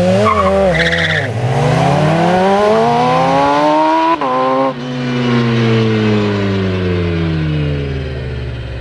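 A KTM X-Bow and a 1000cc Honda Fireblade-engined shifter kart launching from a standing start at full throttle. The engines rev up steeply, shift up about a second in and again around four seconds, then their pitch sinks and the sound fades as they pull away down the road.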